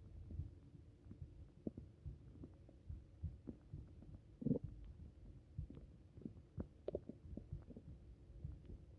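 Faint gurgling and small pops from an upset stomach, with a short louder gurgle about halfway through.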